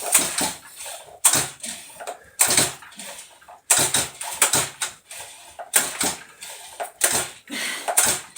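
Chainsaw's recoil starter cord being yanked over and over, each pull a short rasp, roughly one a second and sometimes two in quick succession. The engine turns over but does not catch.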